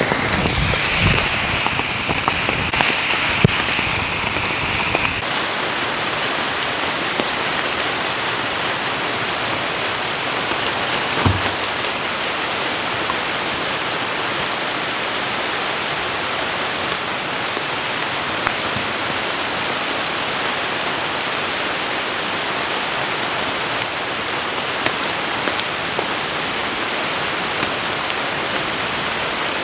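Steady rain falling, an even hiss. In the first five seconds there are scattered sharper drop ticks and a low rumble that fades out. There is a single dull knock about eleven seconds in.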